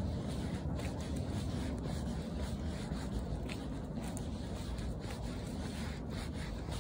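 Rumble of wind and handling on a phone's microphone during a walk, with faint scuffs and taps of steps on the path.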